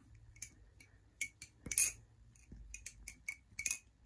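Ex11 balisong with titanium handles and a CPM 154 steel blade being flipped: a string of irregular sharp metallic clicks and clacks as the handles and blade swing shut and open, each with a short ring, the loudest about halfway through.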